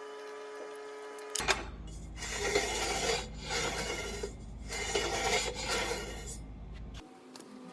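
Rasping scrape on steel in three long strokes, starting suddenly about a second and a half in and stopping near the end.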